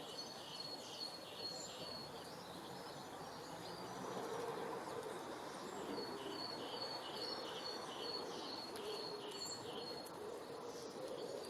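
Birds singing outdoors: a bird repeats a short high note about three times a second, once at the start and again in a longer run from the middle onward. A steady background hiss of natural ambience runs underneath.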